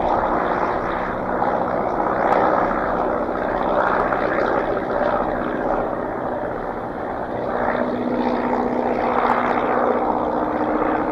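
A steady engine drone with a rushing noise and a low hum, swelling and easing a few times.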